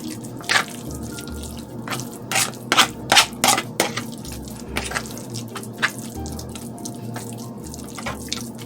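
Stirring a wet, mashed catfish patty mixture with added seasonings: irregular wet clicks and squelches.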